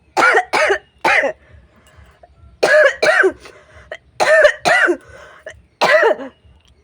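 A woman forcing out deliberate, voiced coughs, about eight in all, in clusters of two or three with short pauses between. This is strained, made-on-purpose coughing rather than a cold's cough.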